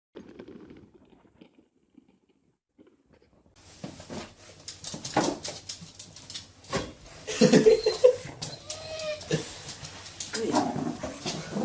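A dog making short vocal sounds amid knocking and rustling, after a near-silent start.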